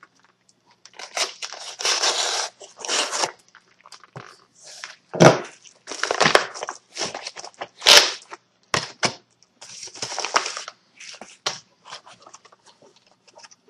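A white mailing envelope being torn open and crumpled by hand: irregular rustling and tearing bursts, with two sharp knocks about five and eight seconds in. Near the end comes the lighter crinkle of the plastic blister pack being handled.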